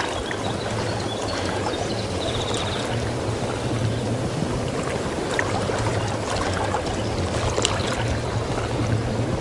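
River water rushing and splashing steadily, with a steady low hum underneath.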